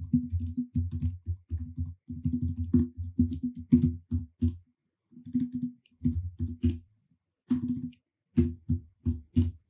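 Computer keyboard typing: irregular runs of quick keystrokes, with a couple of short breaks past the middle.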